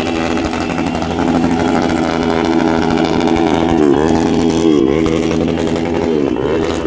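A group of motorcycles and scooters riding past together, their engines running loudly. The engine pitch dips and climbs again a few times around the middle and near the end.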